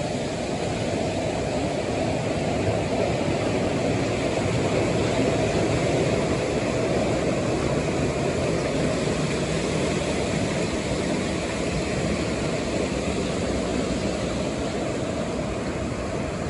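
Floodwater of a creek running over its banks, a steady rushing noise with no breaks.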